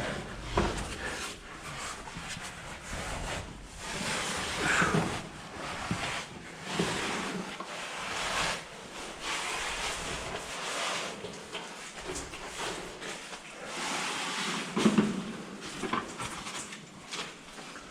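Irregular scraping, rustling and knocking as a person crawls and squeezes through a tight cave passage, gear and clothing rubbing and bumping against rock.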